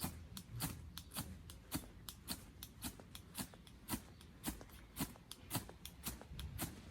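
Campfire crackling: a run of sharp, irregular pops and snaps, a few each second.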